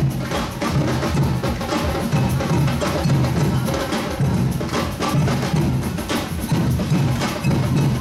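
Carnival parade percussion band drumming a steady beat, with low bass drum hits under sharp wood-block and snare knocks.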